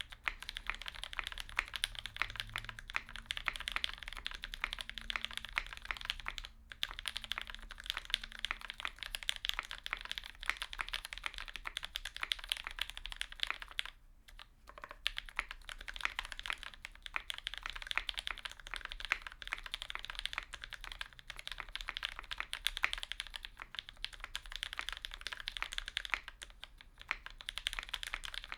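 Continuous typing on a Leaf 60 mechanical keyboard with lubed linear switches (Tealios stems in Gateron Milky housings, Krytox 205g0), a polycarbonate plate and GMK keycaps: a dense, quick run of keystrokes, with short pauses about six and a half and fourteen seconds in.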